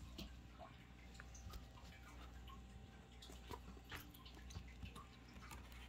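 Near silence: faint room tone with a low hum and scattered, irregular small ticks.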